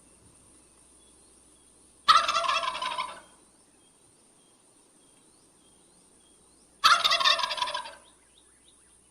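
Wild turkey gobbling twice, each gobble about a second long, the second coming about five seconds after the first.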